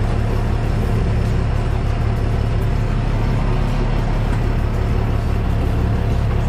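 Charter boat's engine running steadily, a constant low drone with a fast low throb underneath.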